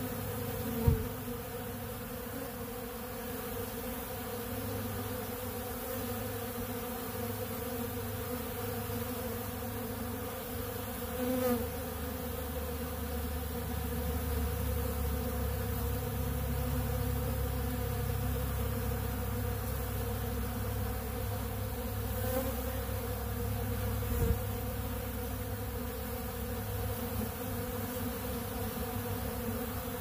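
Many honeybees buzzing steadily as they fly around and feed at an open pollen feeder. A low rumble swells in the middle, and two brief low thumps come, one about a second in and one later.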